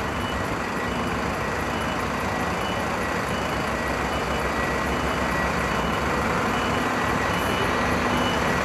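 An electronic warning beeper, the reversing-alarm kind, giving short high beeps a little more than once a second over a steady, loud rumble and hiss from the ferry's vehicle deck.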